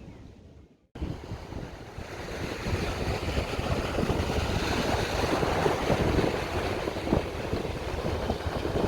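Sea waves washing onto a beach, with wind buffeting the microphone. The sound drops out briefly about a second in, then comes back and grows louder.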